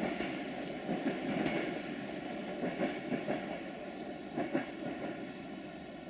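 Passenger train rolling along the track out of sight, wheels clicking now and then over the rails, the rumble slowly fading.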